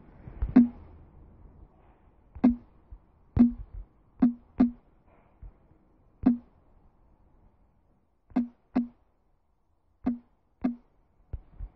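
Key-press clicks of an Android phone's on-screen keyboard as a password is typed: about a dozen short wooden tocks at uneven spacing, one per tap, sometimes two in quick succession.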